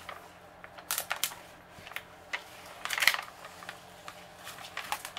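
Diamond painting canvas with its clear plastic cover film crinkling as it is unfolded and pressed flat by hand. There are sharp crackles about a second in and the loudest just after three seconds.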